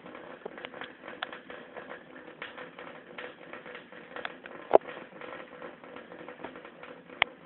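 A cat lapping water from a running tap: quick, irregular clicking laps over the trickle of water, with two sharper clicks about halfway through and near the end.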